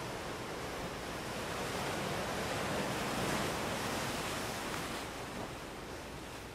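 Ocean surf washing onto a sandy beach, a steady rushing that swells to its loudest about three seconds in and eases off near the end.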